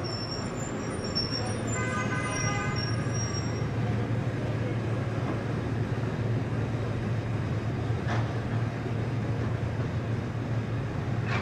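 City street traffic with trams running and a steady low engine or motor hum. A horn-like tone sounds for about a second and a half, about two seconds in.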